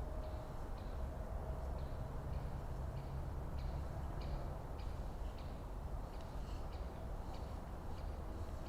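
Woodland ambience: a steady low rumble under short, high ticks that repeat irregularly, about two or three a second.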